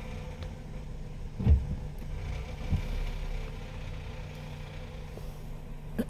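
Car engine idling steadily, heard from inside the cabin, with a short low thump about one and a half seconds in.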